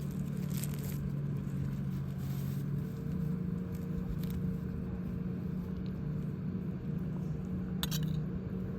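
A motor running with a steady low hum, and a few sharp clicks near the end.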